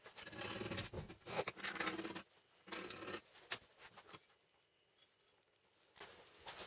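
Handling noise from a metal bar being lifted and rubbed against a wooden drilling jig: short, irregular bursts of scraping in the first three seconds or so. This is followed by a quiet stretch and a sharp click near the end.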